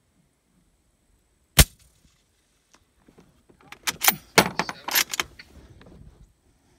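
A suppressed .308 rifle fires a single 220-grain Sellier & Bellot subsonic round, one sharp shot with no supersonic crack. About two seconds later comes a quick run of metallic clicks and clacks as the rifle's action is handled.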